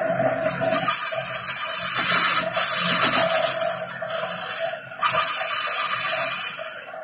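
Wood lathe spinning a large wooden bottle blank while a hand-held turning chisel cuts it: a steady hiss of the cut over a constant motor hum. The cut eases off briefly just before five seconds in, then starts again.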